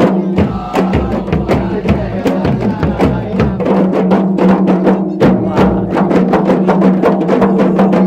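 A kompang ensemble of hand-held frame drums played with the palms, in a fast, dense interlocking rhythm, joined by a large wooden barrel drum.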